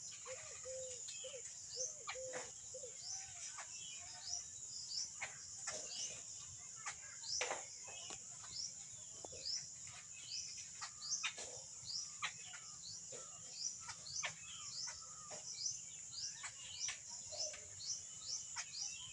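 Small birds chirping repeatedly with short, high calls, over a steady high-pitched insect drone.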